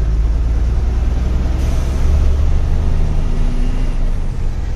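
Truck engine and road noise heard from inside the cab of a moving truck: a loud, steady low rumble.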